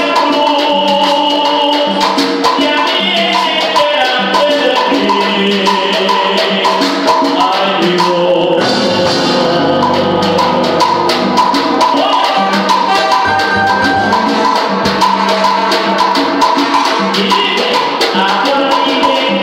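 Salsa band playing live, a busy percussion rhythm driving under pitched instruments and voices.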